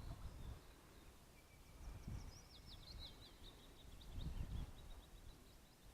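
A small songbird sings a fast, high twittering phrase, starting about two seconds in and lasting a few seconds. Low gusts of wind buffet the microphone.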